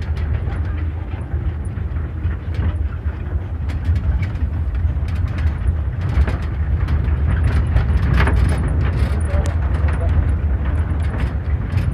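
Road vehicle heard from inside the cabin while driving on a rough road: a steady low engine and road rumble with frequent small rattles and knocks.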